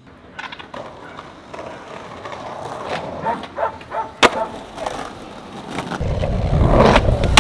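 Skateboard rolling on pavement, the wheel noise building, with several sharp clacks of the board and one loud crack about four seconds in. From about six seconds the rolling turns to a heavier, louder rumble.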